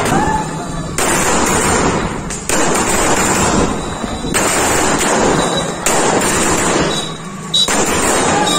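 Firecrackers going off in a run of loud crackling bursts; each burst starts suddenly and fades, and a new one starts about every one and a half seconds.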